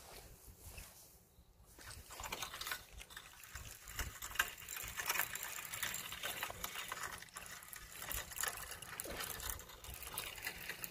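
Daiwa Crosscast 5500 spinning reel being cranked to wind in line on a hooked fish, with handling noise. A dense, rapid rattling and clicking starts about two seconds in and keeps going.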